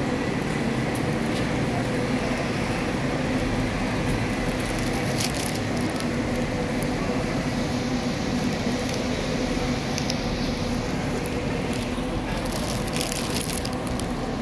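Steady traffic hum from vehicles on the road, a continuous drone with a few brief clicks.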